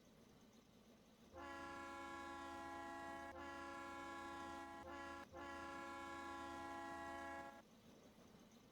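Steam locomotive whistle blowing a steady chord of several tones for about six seconds, briefly broken twice near the middle.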